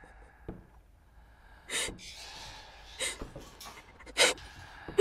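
A person breathing heavily and raggedly: three loud breaths a little over a second apart, with softer breathing between them.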